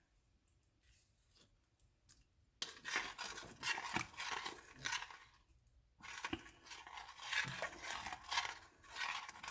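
A spoon scraping and stirring, scooping sour cream into a thick cheese sauce and mixing it in with repeated strokes, starting a couple of seconds in and pausing briefly about six seconds in.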